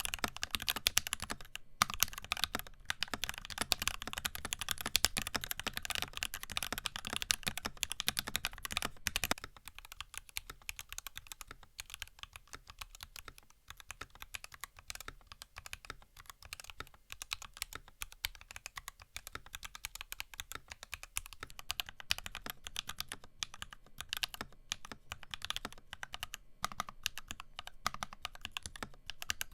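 Steady, fast typing on an NK65 mechanical keyboard with C3 Banana Split tactile switches and PBT keycaps: a continuous run of keystroke clacks. About a third of the way in, the sound turns quieter and thinner, with less low body.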